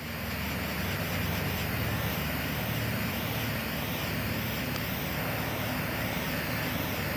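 Handheld butane torch lighter burning with a steady hiss as it heats a length of vent hose to soften it. The hiss builds in the first second, then holds level.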